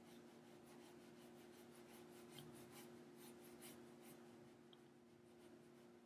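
Faint brushing of a watercolour brush on paper: a run of light, short strokes laying horizontal lines, which stops about four seconds in, over a steady low hum.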